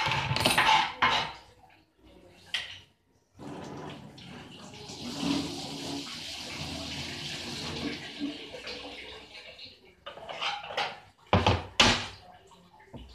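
Water running steadily for about six seconds, with sharp knocks and clatters just before it and again shortly after it stops.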